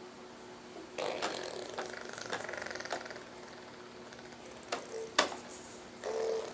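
Plastic toys on a baby jumper's activity tray clicking and rattling as the baby handles them, with about a second of fast ratchet-like rattling from a spinning toy, then two sharp clicks near the end.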